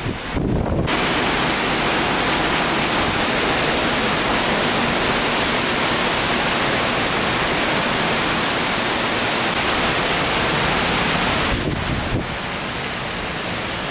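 Hurricane-force wind and heavy rain: a loud, steady rushing hiss that starts abruptly about a second in and eases a little near the end.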